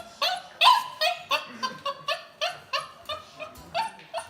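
A dog giving a quick run of short, high yipping cries, about three a second, each one bending up and then down in pitch.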